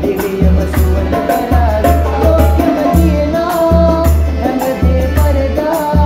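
Calypso-style band music: accordion and hand drums with a shaker over a steady pulsing low bass, and men singing.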